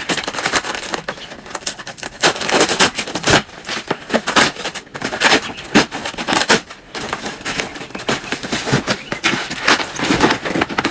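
Packaging being handled and opened: a run of irregular crinkles, rustles and sharp crackles with no steady tone.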